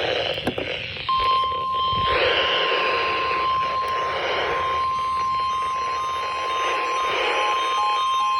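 NOAA Weather Radio 1050 Hz warning alarm tone, a single steady high tone that starts about a second in and holds, received on a radio over a constant hiss of static with crackles just before it. It signals that a weather alert message follows.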